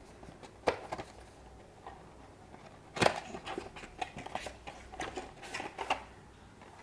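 Cardboard packaging handled: a white paperboard box opened from the side and its inner tray slid out, giving a sharp knock under a second in, a louder one about three seconds in, then a run of small taps and scrapes.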